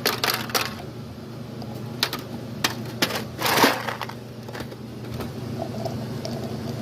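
Kong toy being filled with food: scattered sharp clicks and small rattles of hard pieces, with a louder scrape or rustle about three and a half seconds in.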